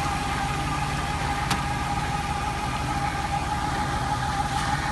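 Tractor engine running steadily while driving a tractor-mounted grape-spreading machine, with a steady whine above the engine note. A single click about a second and a half in.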